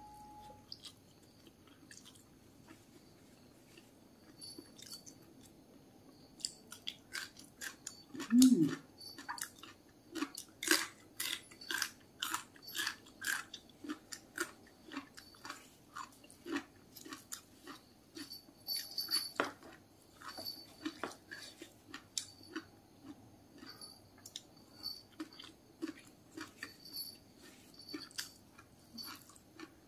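Close-miked chewing of a mouthful of rice, steamed tofu and raw vegetables: wet, clicky chewing and light crunching at about two strokes a second, starting a few seconds in after a quiet stretch. There is a brief low hum about eight seconds in.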